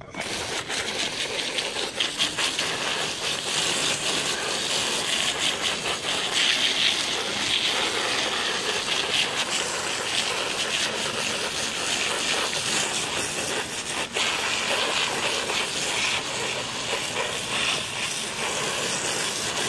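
Garden hose water jet spraying onto rubber RC truck tires in a plastic crate, a steady hiss and splash that comes on suddenly at the start: rinsing the cleaner off the tires.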